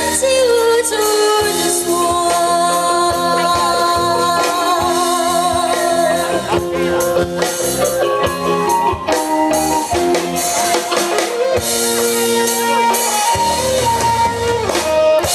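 Live band music with a drum kit, held chords and a melody line over them.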